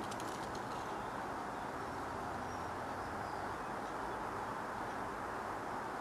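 Quiet, steady outdoor background hiss with a few faint bird chirps and a few faint ticks near the start.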